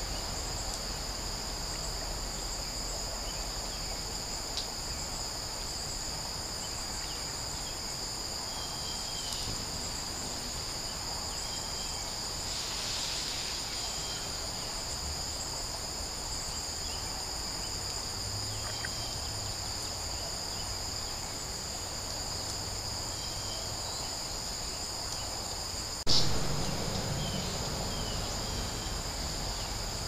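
Steady high-pitched insect chorus with a few faint short chirps over it. Near the end there is a single sudden thump that dies away over a couple of seconds.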